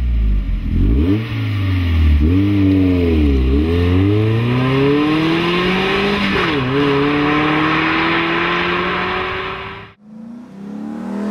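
LS V8 in a Chevy C10 pickup running through a Flowmaster 60 Series Delta Flow muffler. It is blipped twice, then pulls with the pitch climbing steadily, dropping once at a gear change and climbing again. It cuts off abruptly near the end, and a quieter engine sound through the next muffler begins.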